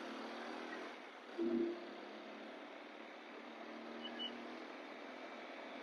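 TVS Apache RTR 200 4V motorcycle riding in city traffic: steady engine hum under wind and road noise, with a short louder low sound about one and a half seconds in.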